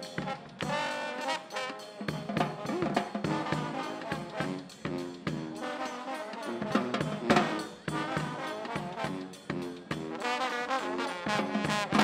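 Street brass band playing, trombones and trumpets over a steady drum beat.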